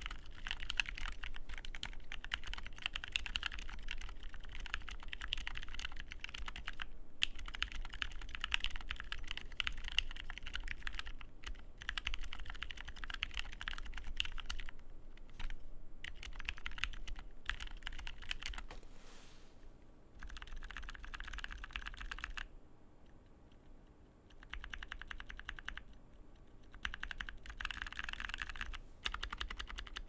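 Typing on a custom 60% mechanical keyboard with lubed 65 g Zealio tactile switches, PBT DSA keycaps, an aluminium plate and an acrylic case. Quick runs of key clacks with short pauses between them. The bottoming-out is dampened, and the lubed stabilisers have no rattle.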